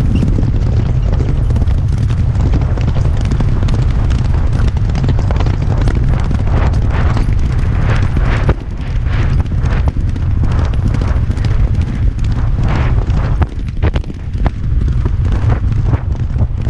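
Racehorses galloping on turf: a steady rhythm of hoofbeats heard from the saddle. Heavy wind rumble on the helmet camera's microphone runs under them.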